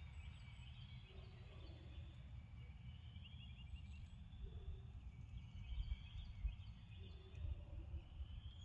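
Faint outdoor ambience: a low steady rumble with faint distant bird calls, including a quick run of chirps about three seconds in.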